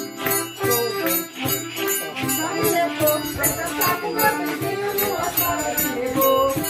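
Music with a steady beat of rattling, jingling percussion and a melody over it.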